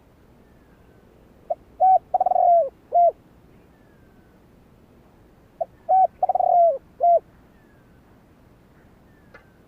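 Spotted dove cooing: two matching phrases about four seconds apart, each a couple of short coos, a longer rolling coo, then a final short coo.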